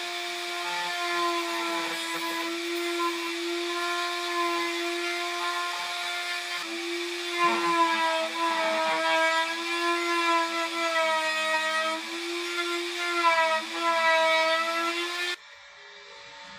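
Makita M3600 electric router running at full speed with a steady high whine. In the second half its pitch dips slightly several times, as it comes under load cutting wood. It cuts off suddenly near the end.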